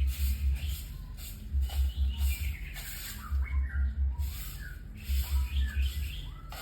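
White-rumped shama (murai batu) singing a run of varied whistles and chirps, heaviest in the second half. Under the song is a deep thumping pulse in groups of four or five beats, repeating every second and a half or so.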